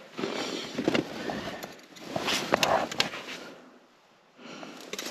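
Rustling and crunching handling noise with scattered clicks, from gloved hands working a tractor's oil dipstick and footsteps in snow. It comes in bursts and briefly drops away near the end.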